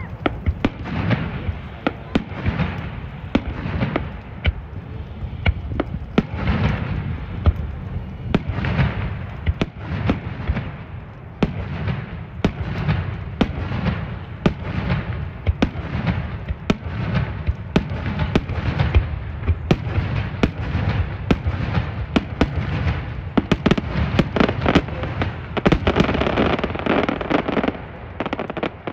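Fireworks display: aerial shells bursting in quick succession, several bangs a second mixed with crackling, growing denser near the end.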